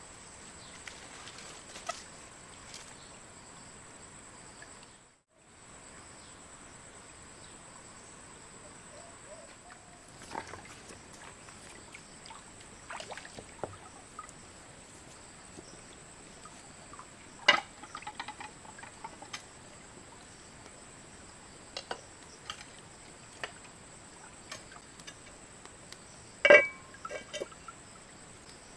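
Steady high-pitched drone of forest insects, breaking off for a moment about five seconds in. Scattered sharp knocks and clatters of handling sound over it, the loudest a little past halfway and near the end.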